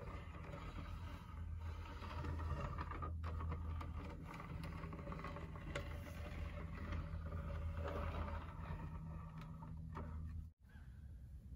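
Steady low hum with faint scattered clicks, cutting out abruptly about ten and a half seconds in and coming back quieter.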